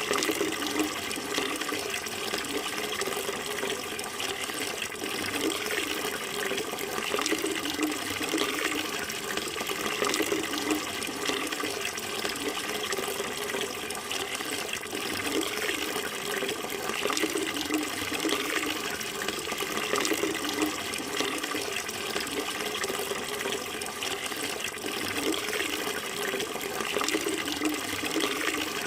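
Running water flowing and splashing steadily, without a break.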